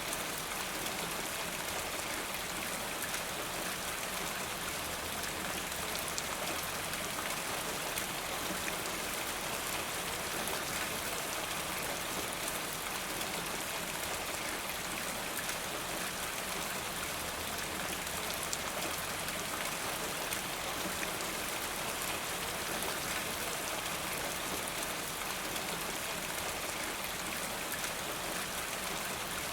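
Steady rain falling in a forest, an even hiss of many drops pattering on leaves and ground, with scattered sharper drop ticks.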